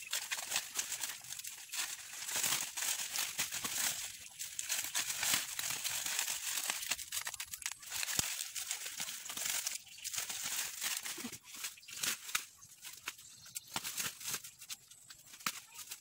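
Dry corn leaves and husks rustling and crackling as a person pushes through the cornstalks and handles the ears, with many small sharp crackles.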